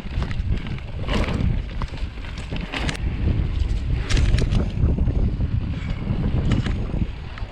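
Mountain bike being ridden over rough ground: wind rumbling on the microphone, with frequent short knocks and rattles from the bumps.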